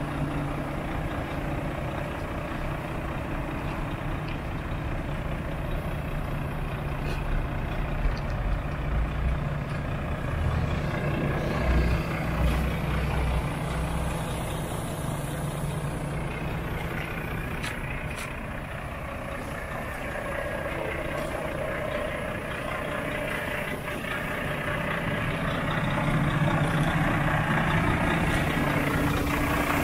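Volvo FH 500 tractor unit's 13-litre straight-six diesel idling steadily.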